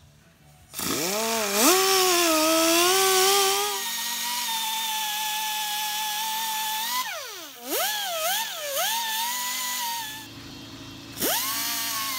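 Pneumatic right-angle die grinder with a sanding disc sanding a brass hammer head. Its whine rises steeply as it spins up about a second in, dips sharply and wavers around seven to nine seconds, drops away near ten seconds, then spins up again just past eleven.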